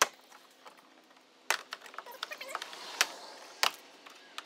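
Plastic trim clips snapping loose as an interior liftgate trim panel is pried off with a plastic pry tool. Several sharp snaps, about a second and a half in, at three seconds and again just after, with plastic scraping and rattling between them.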